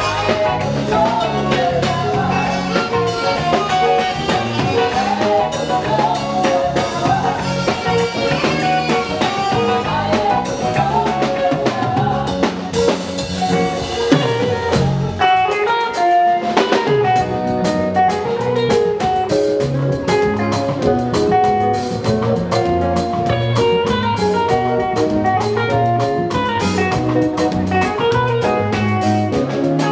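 Live band music: electric guitar and drum kit playing a steady beat under a moving lead melody.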